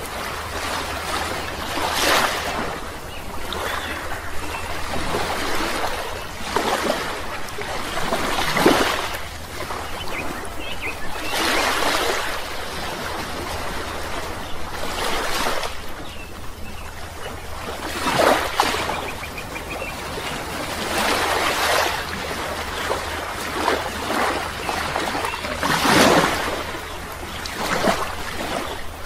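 Rushing water that swells and fades every few seconds, over a steady low hum.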